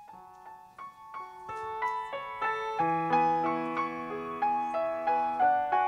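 Grand piano playing the introduction to a song: a melody of single notes that grows louder, with low bass notes coming in about three seconds in.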